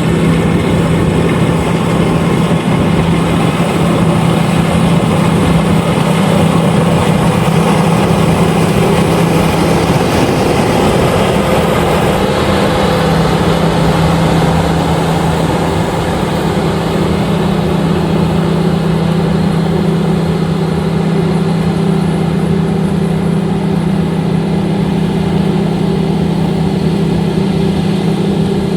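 LOVOL RG130EVO combine harvester running steadily: a loud, continuous machine noise over a steady low engine hum.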